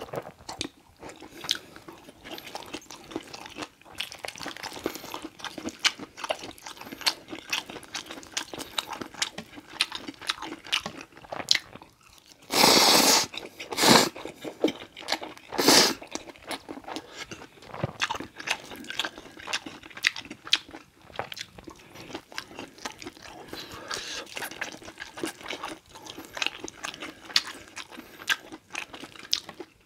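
Close-miked eating of creamy spicy instant noodles: wet chewing and mouth clicks throughout, with three loud slurps of noodles about halfway through.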